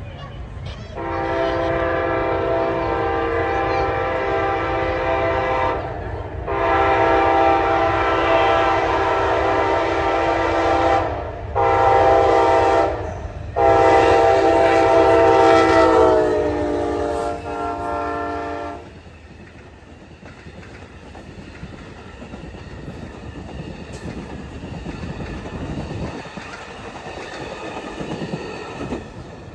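Horn of an Amtrak GE P42DC diesel locomotive blowing the grade-crossing signal: two long blasts, a short one and a long one, the last dropping in pitch as the locomotive passes. Then the passenger cars roll by with wheels clicking over the rail joints.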